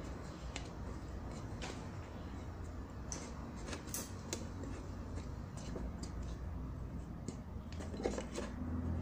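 Scattered light clicks and taps of fingers handling an empty tin can, pressing a piece of craft foam inside its rim, over a steady low hum.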